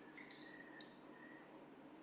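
Near silence: a pause between sentences, with only faint room tone and a faint click about a third of a second in.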